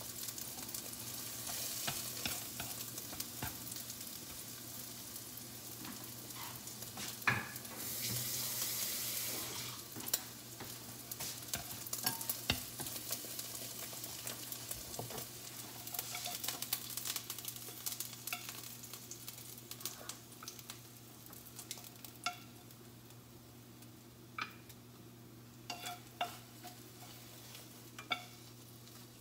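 Food sizzling in a frying pan while chopsticks stir and scrape it. The sizzle gradually fades, and sharp clicks of chopsticks against the pan stand out in the second half.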